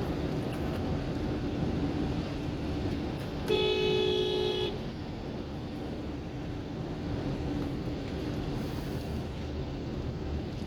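Steady road noise of a car driving in the rain, with a car horn sounding once about three and a half seconds in, a single two-tone blast lasting just over a second.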